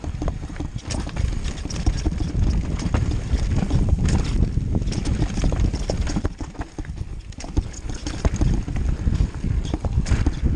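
Mountain bike riding fast down a rough dirt trail: the tyres rumble over the ground, and the bike and camera rattle and knock many times over bumps and roots.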